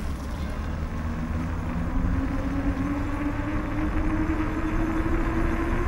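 A vehicle's motor running over a low rumble, its note climbing slowly and steadily in pitch as it gathers speed.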